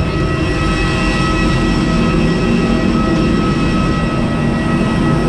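Steady jet aircraft turbine noise on an airport apron: a constant rumble with a high whine of several held tones, with wind buffeting the microphone.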